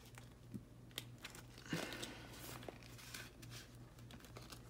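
Paper banknotes and a clear plastic cash envelope being handled, rustling and crinkling faintly with a few light clicks. The loudest rustle comes about two seconds in.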